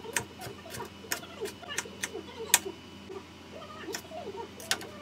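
Kitchen knife dicing soft food on a cutting board: irregular sharp taps of the blade striking the board, with one louder knock about halfway through.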